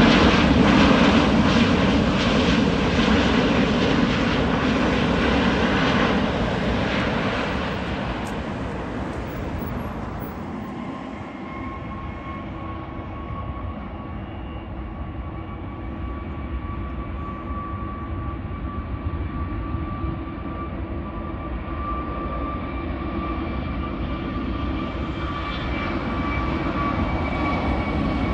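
Jet airliner engines: a loud roar that fades away over the first ten seconds or so. It gives way to a steady engine whine that slowly grows louder toward the end.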